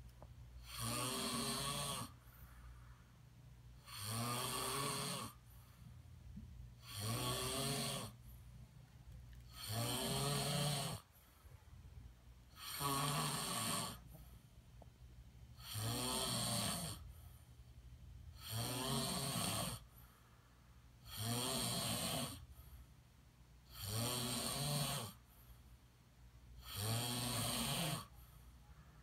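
A person snoring in a steady rhythm: about ten snores, one every three seconds or so, each lasting about a second, with quieter stretches between.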